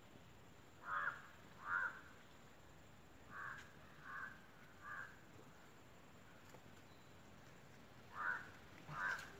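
A crow cawing: seven short harsh caws in three groups, two loud ones about a second in, three fainter ones in the middle, and two loud ones near the end.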